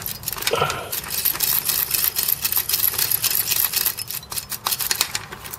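Quick, irregular clicking and rattling of a square plastic PLCC chip socket being wobbled back and forth on a circuit board. Its partly desoldered pins tick in their holes as the socket works loose.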